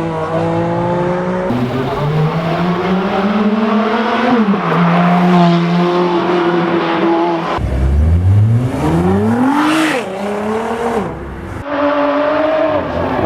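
Supercar engines revving and accelerating in several short clips cut together, their exhaust notes held, rising and falling. About halfway through, one car pulls away with a long, steep rise in engine pitch.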